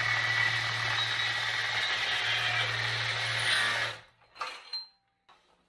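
Cordless reciprocating saw running steadily, its long metal-cutting blade sawing through a weld on a steel truck frame. The saw stops abruptly about four seconds in.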